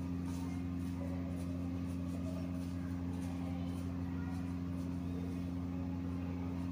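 A steady low hum with room noise and no distinct events.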